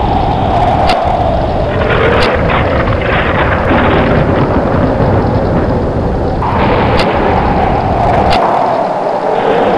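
Thunderstorm sound effect: a continuous heavy rumble and rushing noise, with four sharp cracks of thunder and a moaning tone that falls in pitch, once at the start and again about six and a half seconds in.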